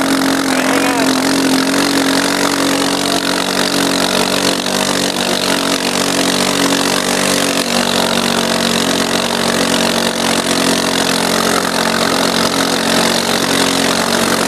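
Arctic Cat 250 quad's engine running at a steady, even speed under load, pulling two snowboarders on tow ropes, heard close up from the seat.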